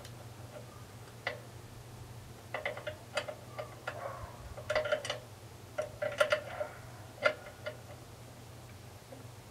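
Hand tools clicking and clinking on the metal fittings of an RV stabilization jack as a nut is worked with a wrench. The sharp clicks come irregularly, a few at a time, with the loudest about seven seconds in.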